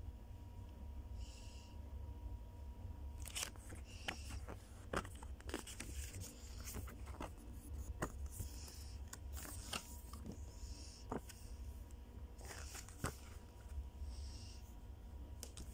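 Paper bus timetable leaflets rustling and crinkling as they are handled, turned over and unfolded, with irregular sharp crackles of the paper from about three seconds in.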